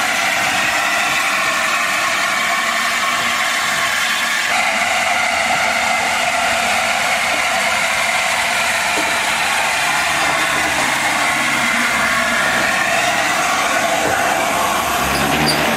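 LNER A4 three-cylinder Pacific steam locomotive running past at speed: a steady, noisy running sound, with a lower rumble joining from about two-thirds of the way through as the engine comes close.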